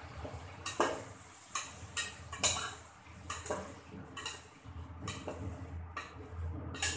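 Long steel spoon stirring chopped tomatoes and shallots in an aluminium pot, with about ten irregular clinks and scrapes of metal on metal as it knocks against the pot.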